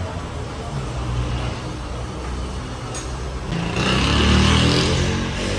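Road traffic: a motor vehicle's engine running, growing louder with a rise in pitch about three and a half seconds in as one passes or revs.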